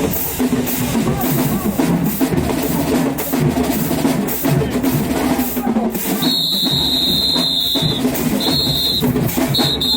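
Marching band playing loudly with heavy drumming. From about six seconds in, a high steady whistle sounds three times: one long blast, then two shorter ones.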